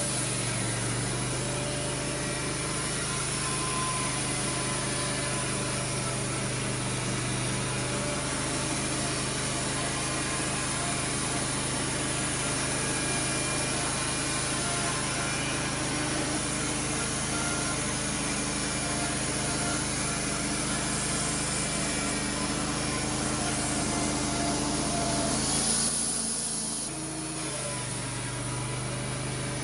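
Portable band sawmill running steadily, its gas engine and blade cutting through an English walnut log. About 26 seconds in, the sound dips for a second or so and then comes back.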